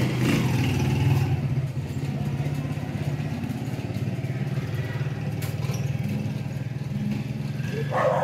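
A motor vehicle engine running steadily nearby at an even pitch, with a dog barking once near the end.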